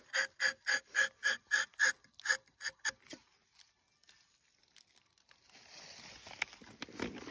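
Rubber-tapping knife shaving a thin strip of bark from a rubber tree in quick rasping strokes, about three or four a second, stopping about three seconds in. After a short quiet gap, rustling with a few light clicks near the end.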